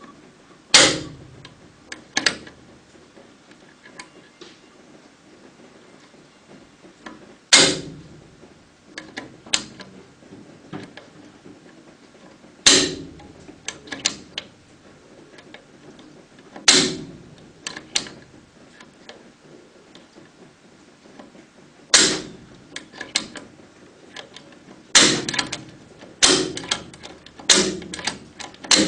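Full-metal rubber band gun's trigger mechanism clicking as it is worked: a sharp metallic click every few seconds as the toothed wheel advances and lets a rubber band go, each followed by a few lighter clicks. The clicks come about once a second near the end.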